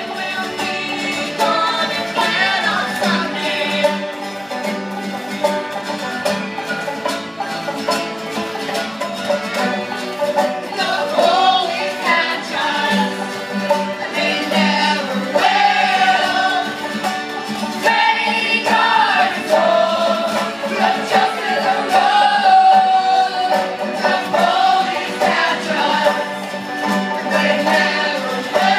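Music: a voice singing a wavering melody over plucked-string accompaniment, continuous and loud.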